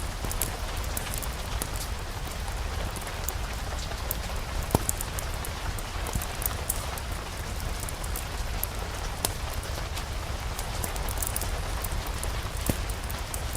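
Steady rain mixed with a wood fire crackling in a fireplace, with a low rumble underneath. Scattered sharp pops cut through, the loudest about five seconds in.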